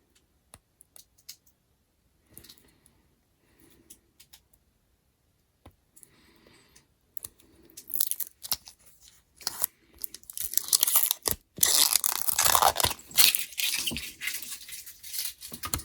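Protective plastic film being peeled off a new nail-stamping plate. Scattered small clicks and scratches at first, then from about eight seconds in a loud crackling tear, loudest in the second half.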